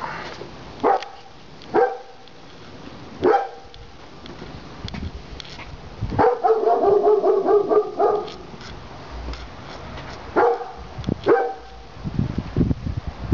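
Dog barking: a few single barks a second or so apart, a continuous run of barking lasting about two seconds in the middle, then two more barks close together.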